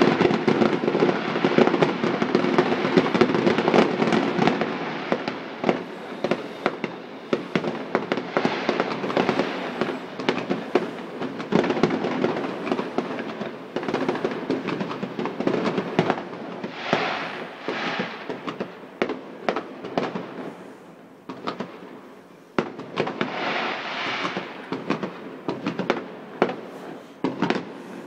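Fireworks display: aerial shells banging and crackling in rapid succession, thickest at the start and thinning out. There are two spells of dense crackling, about two-thirds of the way through and near the end.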